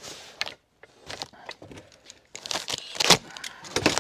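Brown paper and cardboard packaging crinkling and tearing as it is pulled open by hand, in short irregular rustles. The loudest come about three seconds in and again just before the end.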